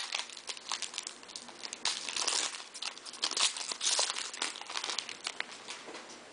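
Foil wrapper of a Bowman baseball-card jumbo pack crinkling and tearing as it is pulled open by hand, in a run of irregular crackles that dies down near the end.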